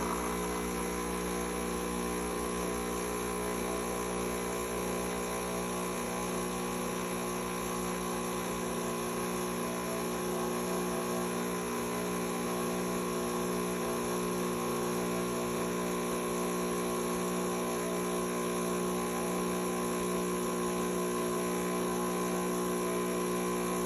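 Miele CM5300 coffee machine's pump running with a steady, even hum, pumping the water out of the system during its drain-and-evaporate program.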